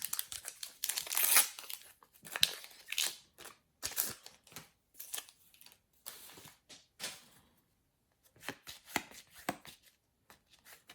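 A Panini Adrenalyn XL trading-card packet being torn open, its wrapper crinkling, with cards handled and flicked in short scratchy rustles.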